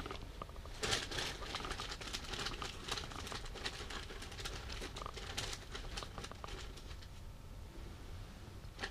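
Faint rustling and scattered light clicks from a winter jacket and an ice-fishing rod and reel being handled while jigging, densest about a second in and again around the middle.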